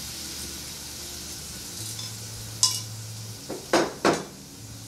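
Sauce simmering with a steady light sizzle in a stainless steel sauté pan, then three sharp metal clinks of cookware and utensils, about two and a half, three and a half and four seconds in.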